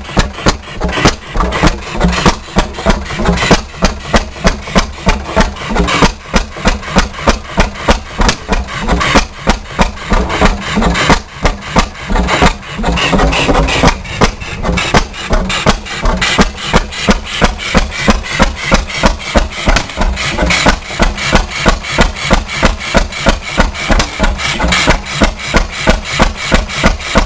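1905 Reid 15 hp two-stroke oilfield stationary engine running on propane with spark ignition, its exhaust banging out sharp, even beats roughly three a second. The flyball governor is not connected, so the speed is held only by the propane needle valve.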